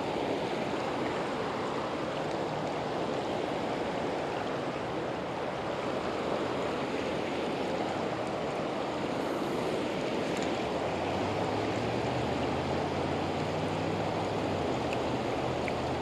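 Steady rush of a high, fast-flowing river. A faint low hum joins in about two-thirds of the way through.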